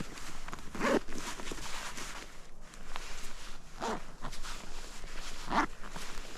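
Nordic touring skate blades gliding on thin new lake ice about 45 mm thick: a steady scrape broken by three louder strokes, about a second, four seconds and five and a half seconds in.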